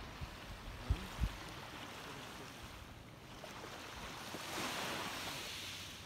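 Small waves lapping on a sandy, pebbly shore, one wash swelling up the beach and fading near the end. Two short low thumps about a second in.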